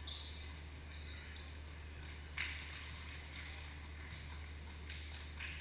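A volleyball struck by hand once during a rally, a sharp slap about two and a half seconds in, over the steady low hum of the gym's ventilation.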